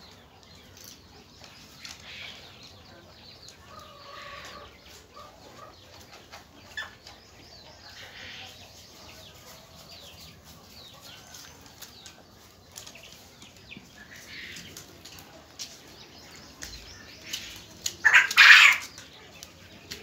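A pen full of young Japanese quail: faint high calls and small scratching sounds from the flock, then a loud flurry of flapping wings near the end.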